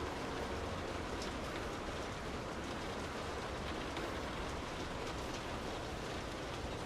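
Rain falling on a car's roof and glass, heard from inside the cabin: a steady, dense patter with single drops ticking through it.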